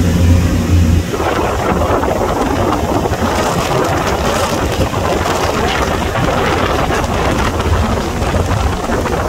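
A boat's engine drones low and steady for about the first second, then wind buffets the microphone with the rush of water past the hull as the boat cruises.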